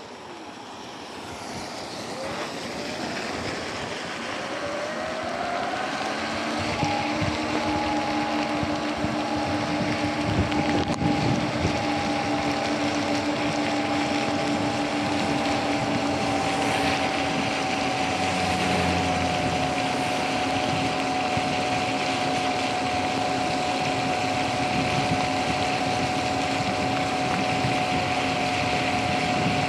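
Sur-Ron electric bike accelerating: its motor whine rises in pitch and loudness over the first six seconds or so, then holds a steady whine at cruising speed. Under it runs a constant hiss of tyres on the wet road and wind on the microphone.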